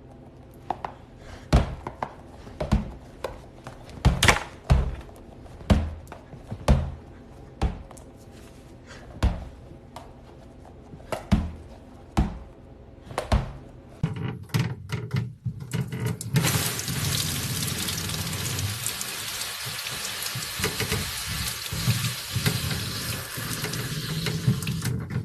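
Irregular sharp taps and knocks, then, a little past halfway, a steady hiss that runs on.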